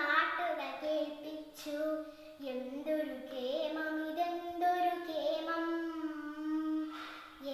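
A young girl singing a Malayalam poem in a chanted, melodic recitation (kavithalapanam), her voice holding long notes and gliding between them, with short pauses for breath.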